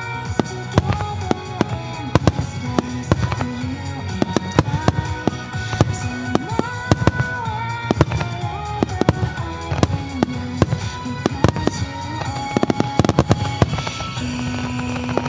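Fireworks shells bursting again and again over a pop music soundtrack, the music playing continuously. Near the end, a dense run of crackling bursts sets in.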